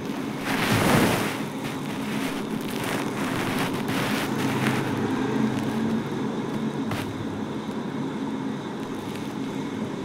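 A rose-ringed parakeet's wings flap in a short, loud whir about half a second in. A steady hiss with a low hum follows, with a few faint clicks.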